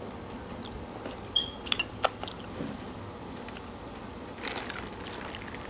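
A few light clicks and clinks of utensils and tableware, then soda poured from a can into a cup of ice, a short fizzing splash near the end.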